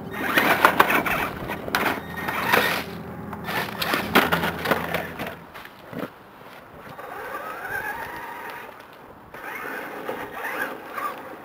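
Traxxas E-Maxx electric RC monster truck crawling over a stone wall: its tyres and plastic chassis scrape and clatter on the rocks with many sharp knocks over the whine of its electric motors. After about five seconds it turns fainter, with a motor whine rising in pitch and more clattering near the end.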